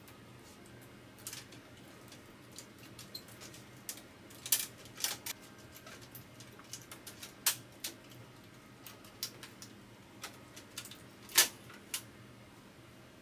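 Irregular sharp clicks and clacks from a Kyocera KM-2550 photocopier under repair, coming singly and in small clusters, with the loudest click near the end, over a faint steady hum.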